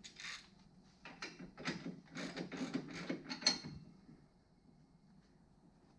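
Hand ratchet clicking through a run of short, irregular strokes from about a second in until nearly four seconds in, working a bolt on a car's front suspension.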